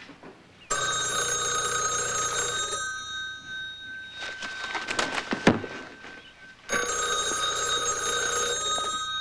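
Landline telephone bell ringing twice, each ring about two seconds long with a gap of about four seconds between them. A single sharp knock falls between the two rings.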